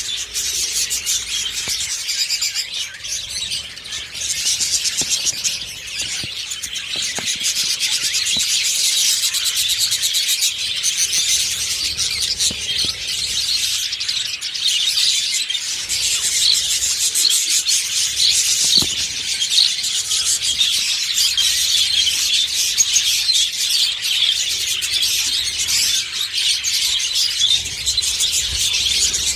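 Budgerigars chattering and warbling, a dense, continuous flock of chirps.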